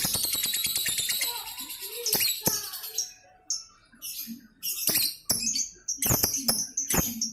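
Lovebird ngekek: a rapid, high-pitched run of chattering chirps and clicks, thinning out for a moment about three seconds in and then picking up again.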